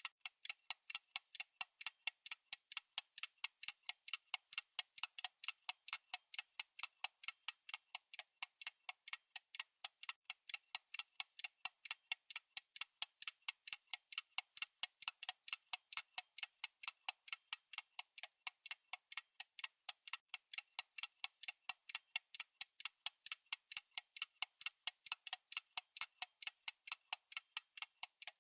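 Clock-style timer ticking, a rapid, even stream of sharp, high clicks that marks off the countdown.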